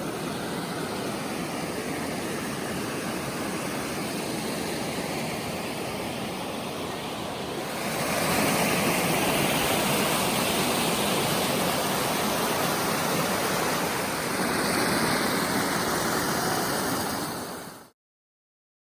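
Waterfall pouring into a pool: a steady rushing of water that grows louder about eight seconds in and cuts off suddenly near the end.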